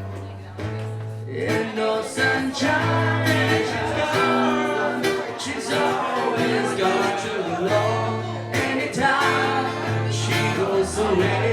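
Background music: a song with strummed acoustic guitar, a singing voice and a bass line changing note every second or so.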